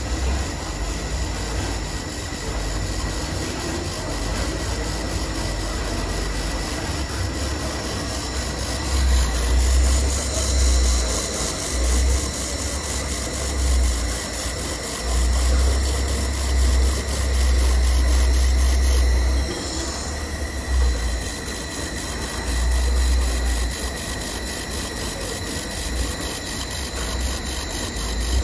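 IPG LightWELD XR handheld laser welder welding stainless steel tube with filler wire, set to about 550 W and pulsing four times a second. It gives a steady high whine with fast, even ticking on top. Heavy low rumbles swell and fade through the middle.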